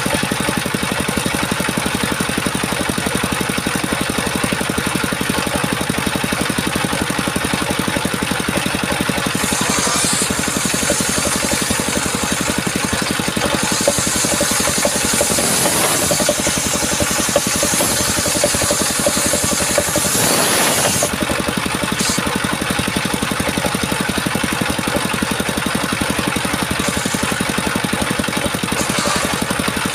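Small engine running steadily at an even speed, with a harsher hissing edge added for several seconds around the middle.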